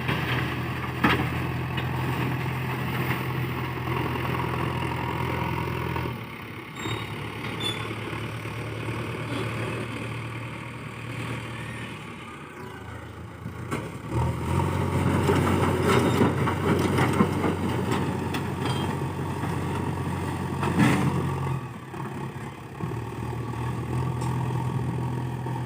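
JCB 3DX backhoe loader's diesel engine running while working, its note dropping and rising again several times, with a few sharp knocks.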